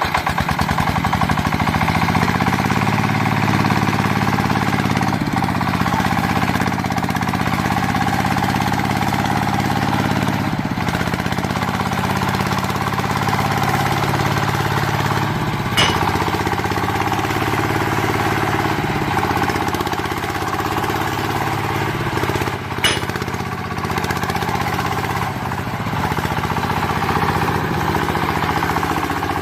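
Small electric motor running steadily with a fast buzzing rattle, its pitch dipping and rising slightly now and then; two sharp clicks, one past the middle and one about three-quarters through.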